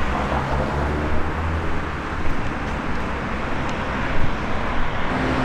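City street traffic: cars running through an intersection, heard as a steady low rumble of engines and tyres.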